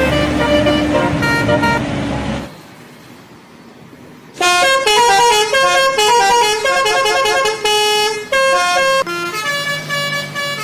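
Bus telolet horn, a set of tuned air horns, playing a quick melody of short stepped notes, starting about four seconds in. Before that, a loud noisy vehicle sound stops abruptly about two and a half seconds in.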